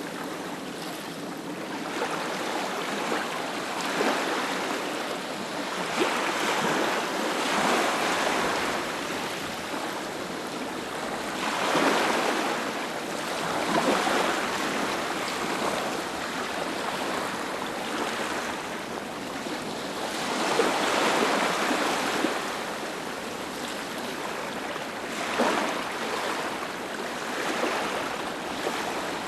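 Ocean waves breaking on a beach, a steady wash of surf that swells every few seconds as each wave comes in and eases as it draws back.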